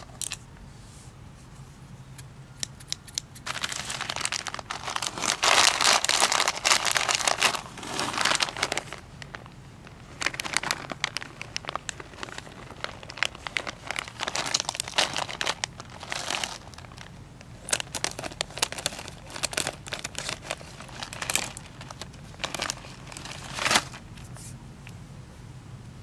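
Clear plastic bags of nylon zip ties being handled, crinkling in irregular bursts with sharp crackles.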